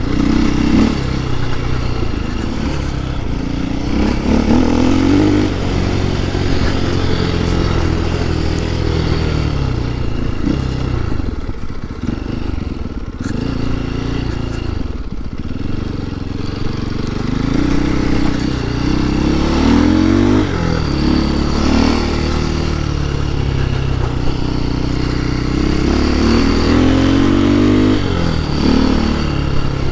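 KTM 530 EXC's single-cylinder four-stroke engine running under way, its pitch rising and falling with the throttle; it drops off twice around the middle and revs up in rising sweeps twice in the later part.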